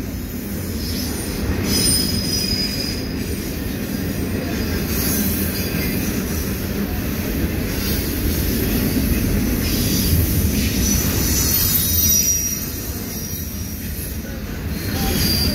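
Double-stack intermodal container train rolling past: a steady low rumble of freight-car wheels on the rails, with thin high-pitched wheel squeals coming and going.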